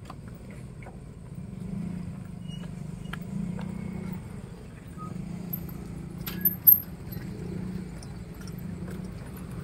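A motor running steadily with a low hum that swells and eases, with scattered small clicks and a loud double knock about six and a half seconds in.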